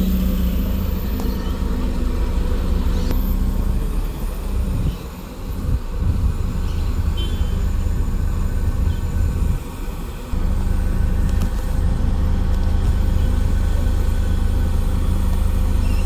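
Mercedes-Benz OC500LE CNG city bus engine running close by, a steady low hum that dips briefly twice.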